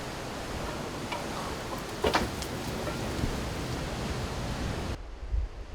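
Steady background hiss with a single short knock about two seconds in. Near the end it changes abruptly to a low wind rumble on the microphone.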